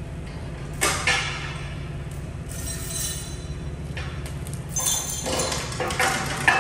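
A steel bar is handled on the chuck table of a Blanchard No. 20 vertical rotary surface grinder, giving short metallic clinks and scrapes: one about a second in, another around three seconds, and a cluster near the end. A steady low hum runs under them.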